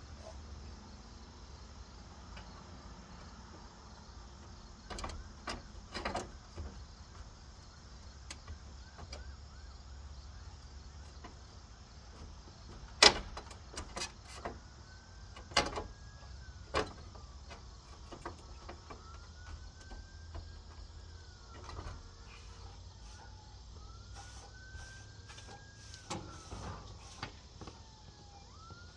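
Scattered knocks and clicks, the loudest about halfway through, over a low hum. In the second half a distant siren wails, its tone rising, holding and falling several times.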